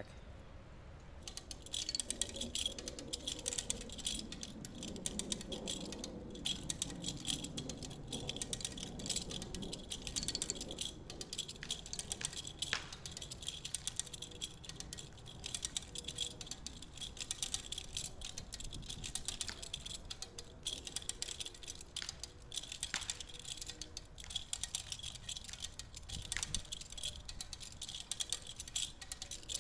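8-ton winch ratcheting as it hauls the rope tight on a notched tree: a rapid, steady run of sharp clicks.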